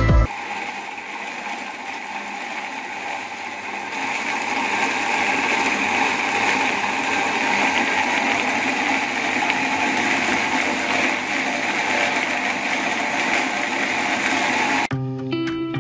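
Industrial stainless-steel coconut milk grinder running with a steady, noisy whirr, getting louder about four seconds in. Music comes back in near the end.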